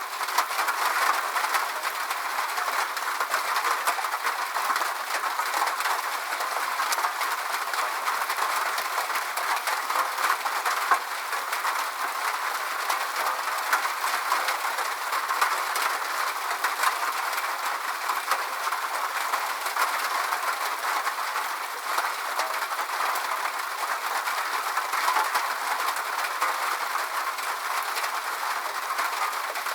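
Steady rain: a dense, even hiss of falling drops with many small drop ticks, unchanging throughout.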